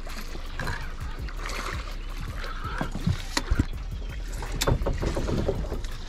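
A few sharp knocks and clicks of gear being handled on an aluminium fishing boat, about three and a half and five seconds in, over a steady low rumble.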